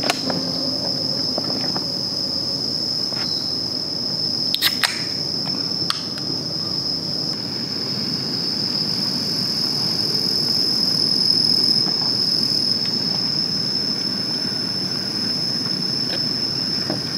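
Insects singing in a steady, unbroken high-pitched drone, with a few sharp clicks about five and six seconds in.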